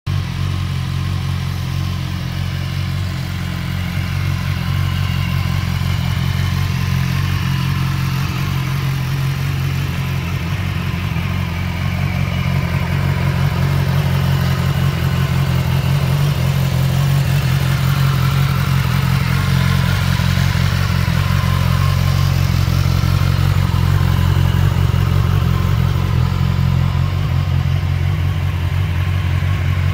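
2015 BMW S1000XR's inline-four engine idling steadily, a little louder in the second half.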